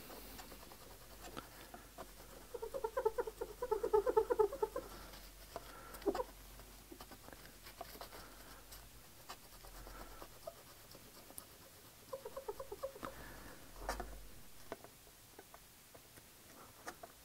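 A lens-cleaning wipe rubbed over a pane of glass, squeaking in quick chattering runs about three seconds in and again near the end, with soft rubbing in between and a couple of light knocks.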